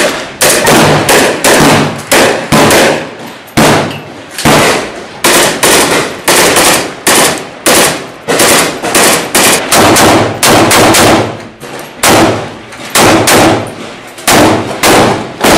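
Kalashnikov-type assault rifle firing repeatedly at close range inside a room, in rapid single shots and short bursts with brief pauses. Each report is loud and rings off the walls.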